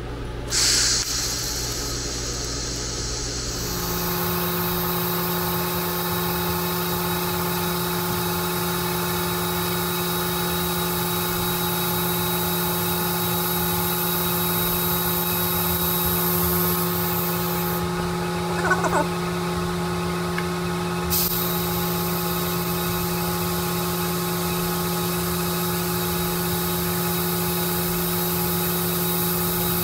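TIG welder running an arc along the seam of a steel rifle receiver: a steady hum with a hiss, starting about four seconds in after a short burst of hiss.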